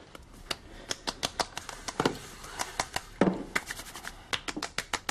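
Hands patting and slapping the skin of the face and neck: a quick, irregular run of sharp light slaps, with a couple of heavier, duller pats about two and three seconds in.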